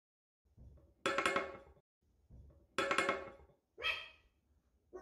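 Pet dog barking in alarm, as at someone at the door: four barks, the first two long and loud, the last two shorter.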